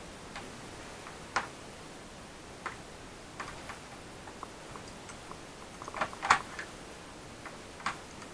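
Scattered light clicks and taps of small plastic and metal laptop parts being handled during disassembly, with a louder run of clicks about six seconds in, over a steady hiss.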